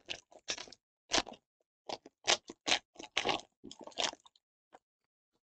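Plastic wrapper of a 2021 Panini Absolute Football jumbo card pack being torn open and crumpled by hand. It makes a run of short, sharp crinkles and crackles that stop near the end.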